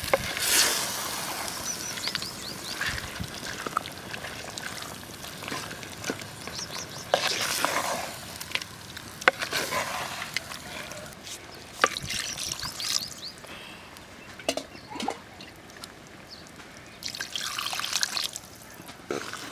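Chicken pieces in a wet masala stirred with a wooden spoon in a clay pot: wet squelching and scraping in irregular swishes, with a couple of sharp knocks of the spoon against the pot. Near the end, water is poured into the pot.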